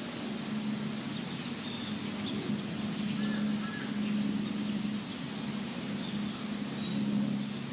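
Outdoor ambience: a steady low hum that swells and fades, with a few faint, short, high bird chirps scattered through it.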